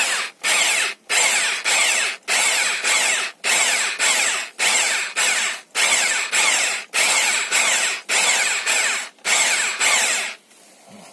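Electric drill spinning a Sunnen honing head in an engine cylinder bore. It runs in short surges a little under two a second and stops about ten seconds in.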